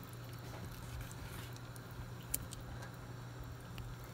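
Large pot of soup simmering, with soft scattered pops and ticks and one sharper click about two and a half seconds in, over a steady low hum.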